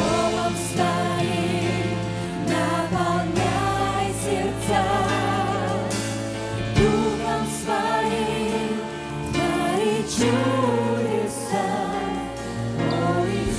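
Live contemporary worship music: a lead singer and a group of backing vocalists singing held, wavering notes over a band with keyboard and acoustic guitar.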